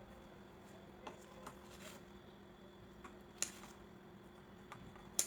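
Faint rustling and light clicks from handling thin warqa (pastilla) pastry sheets, with a sharper tick about three and a half seconds in and another near the end, over a faint steady hum.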